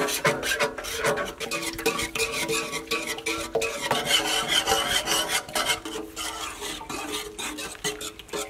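A wire whisk beating eggs in a large metal pot: rapid, continuous metallic clicking and scraping against the pot's side and bottom, with the pot ringing under the strokes.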